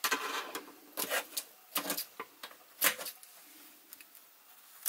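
Scissors snipping through foam air-conditioner filter material: several short, irregular cuts through the first three seconds, then it goes quiet.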